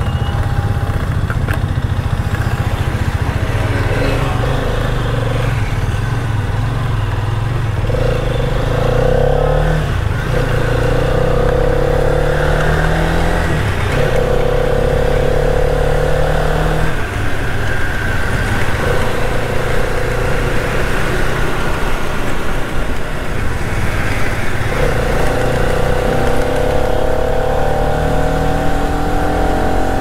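Hero Karizma XMR 210's 210cc single-cylinder, liquid-cooled engine accelerating through the gears. The engine note climbs in pitch several times, each climb cut off and restarting lower at an upshift.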